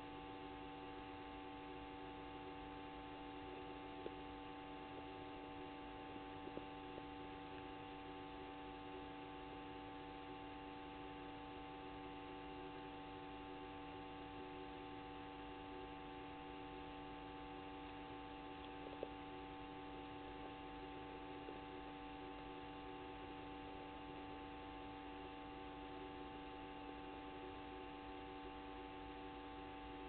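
Steady electrical hum made of several unchanging tones, with a few faint clicks about four, six and nineteen seconds in.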